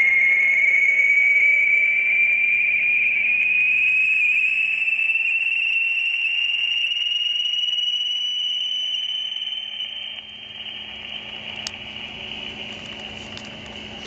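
Shortwave receiver audio of an interfering carrier sweeping across the 80-metre amateur band: a single whistle tone rising slowly and steadily in pitch over band hiss. It fades out about ten seconds in, leaving only receiver noise. The interference is understood to come from an industrial RF heating unit.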